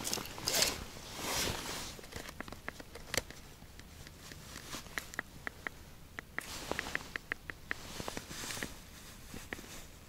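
A zippered fabric case being handled: rustling and scraping swishes in the first two seconds, then a scattered run of small sharp clicks.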